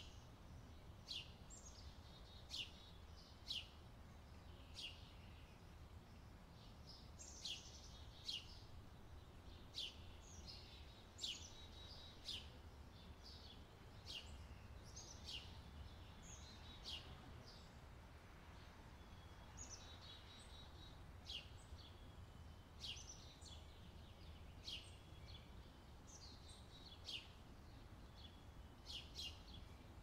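Small songbirds chirping: many short, high calls in quick irregular succession, over a faint steady low rumble.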